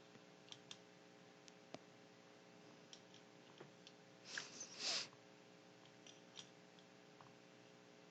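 Near silence: room tone with a low hum, scattered faint clicks, and one brief soft noise about four and a half seconds in.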